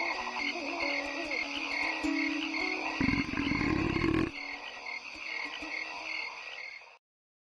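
Night pond ambience of frogs croaking with a high chirp pulsing a few times a second. About three seconds in comes a deep, loud frog croak lasting just over a second, and the sound cuts off abruptly near the end.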